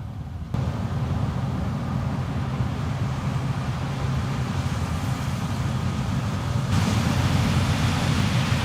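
Heavy farm machinery running steadily in a corn field: a low diesel engine drone under a hiss of machine noise. The sound jumps louder about half a second in, and again near the end, with more hiss.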